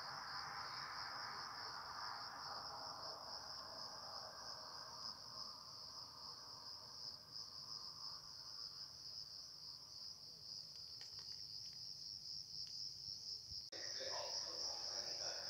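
Crickets chirping in a continuous, rapidly pulsing high trill. Near the end the recording cuts abruptly, and the trill goes on over a slightly louder background.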